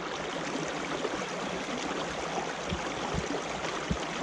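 Water rushing and churning down a narrow concrete irrigation channel, a steady rushing sound, with a few soft low thumps in the second half.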